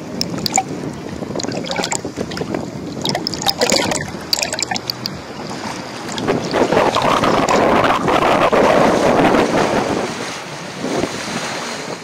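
Sea surf washing onto a beach, with wind buffeting the microphone. A bigger wave swells up about six seconds in and dies down about four seconds later.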